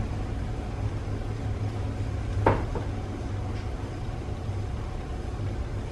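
A steady low hum, with one sharp clink about two and a half seconds in as a metal spoon knocks against the iron pan, and a fainter tap just after.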